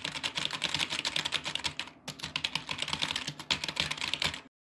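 Fast, frantic typing on a computer keyboard, about ten keystrokes a second, with a short break about two seconds in; it stops just before the end.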